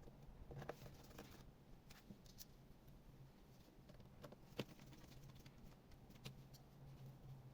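Near silence with a faint low hum and scattered faint clicks and taps, one sharper click past the middle.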